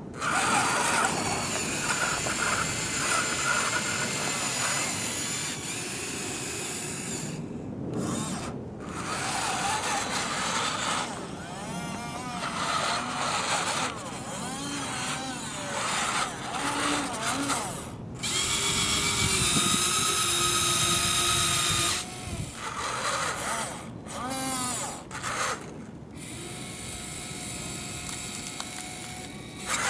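Small electric motors and gearboxes of a radio-controlled model wheel loader whining as it drives and works its bucket arm, in stretches of a few seconds with short pauses. The pitch rises and falls, and there is one steady high whine for a few seconds past the middle. Gravel scrapes and crunches as the bucket digs into the pile.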